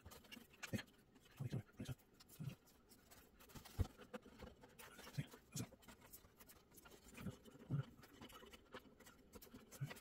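Faint light taps and scraping of fingers handling flat ribbon cables and pressing them into their connectors on a printer motherboard, a soft knock every second or so.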